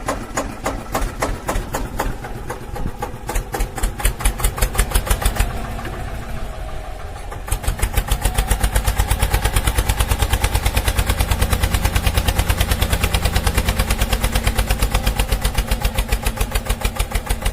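Small engine running with an even, rapid chugging of about six beats a second, growing louder about seven and a half seconds in.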